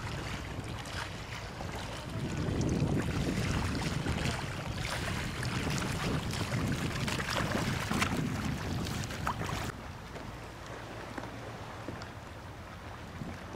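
Kayak paddles dipping and splashing in sea water beside a two-seat inflatable kayak, with wind buffeting the microphone. About ten seconds in, the sound drops abruptly to a quieter, even wash of water and wind.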